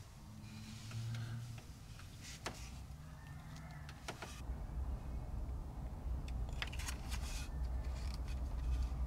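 Hands twisting stripped copper wire ends together, faint rustling with a few small clicks. From about halfway a steady low rumble sets in under the handling.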